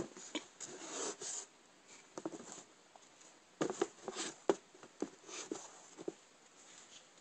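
Handling noise from hands moving a sneaker and the camera close around it: a sharp click at the start, then irregular short rubs, scrapes and taps.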